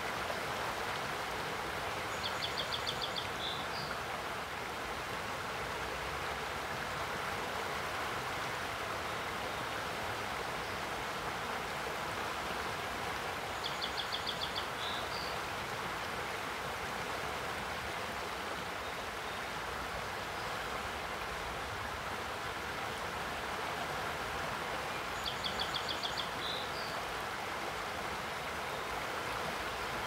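Boise River running fast over a shallow riffle in high spring flow: a steady rush of water. A songbird sings a short, rapid trill three times, about every eleven seconds.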